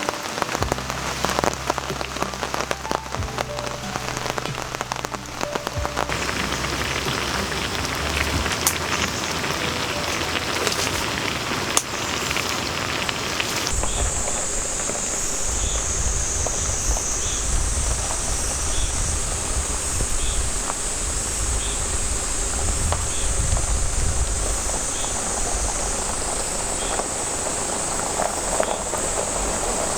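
Rain falling steadily, a dense patter of drops. From about halfway a steady, high-pitched drone of cicadas joins in.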